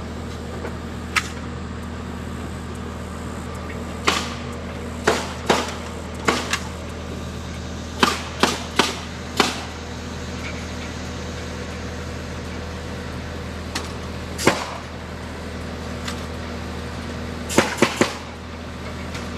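Hand hammer driving nails into timber, sharp irregular blows in short runs of two to four, fastening a roof truss in place. A steady engine idle hums underneath.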